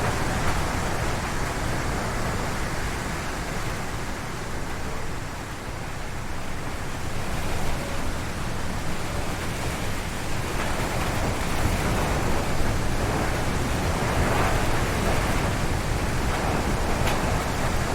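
Strong wind gusting through forest trees, a steady noise that eases briefly about five seconds in and then swells again.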